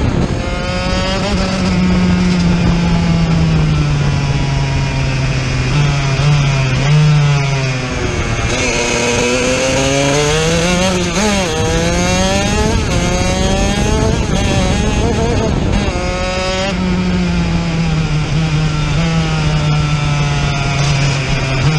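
Racing kart engine heard onboard at speed, its pitch rising and falling with the revs through the lap, with a quick climb and drop about halfway through.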